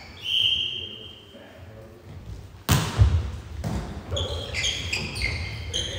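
A referee's whistle gives one short blast, then nearly three seconds in a volleyball is struck hard on the serve, followed by further ball contacts during the rally and players' shouts, all echoing in a large sports hall.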